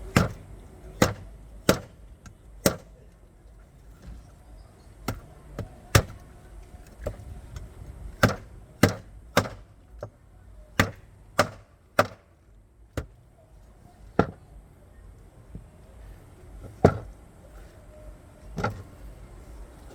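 A knife chopping through a large jack fish on a cutting surface: about twenty sharp, irregular chops, some close together and some a few seconds apart.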